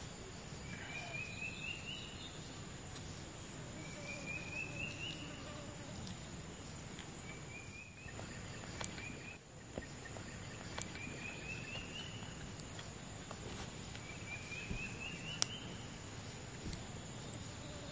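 A forest animal's call repeating every three seconds or so, each a rising, finely pulsed trill about a second long, over a steady high whine and background noise. A few sharp clicks sound, the loudest about fifteen seconds in.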